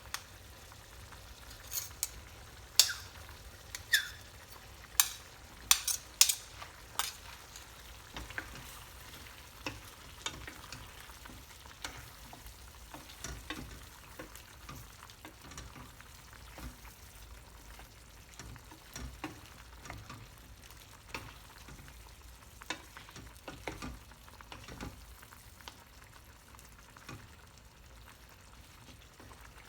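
Food frying in a pan with a faint sizzle while a utensil stirs and scrapes it. In the first several seconds there is a run of sharp clinks of the utensil against the pan, then softer, scattered scrapes.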